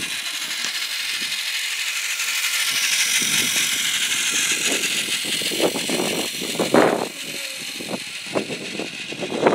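Small battery-powered motor and gearbox of a Plarail toy train whirring as it runs on plastic track, growing louder as it passes close by and then fading away. Several short louder sounds come over it in the second half, the loudest about two-thirds of the way through.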